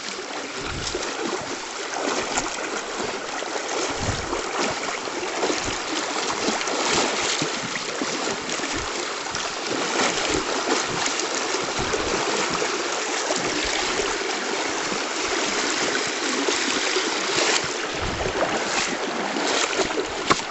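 River water running, a steady rushing noise, with occasional short low thumps.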